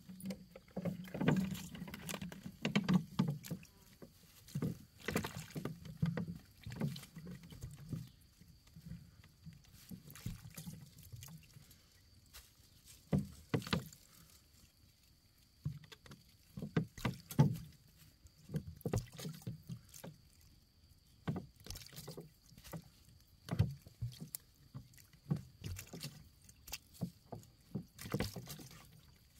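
Potatoes being washed by hand under water poured from a plastic bottle: irregular splashes and dripping as the water hits the potato and hands, with rubbing on the wet skins and soft knocks as potatoes are picked up and set down on the ferns.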